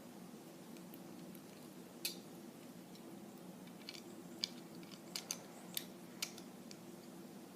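Small plastic Lego pieces clicking as they are handled and pressed together: a handful of short, sharp clicks spaced irregularly over a faint steady hum.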